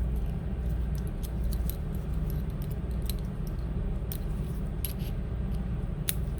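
Small, sharp metallic clicks and ticks at irregular intervals from a screwdriver and tiny screws being worked inside an opened MacBook, the sharpest click near the end, over a steady low hum.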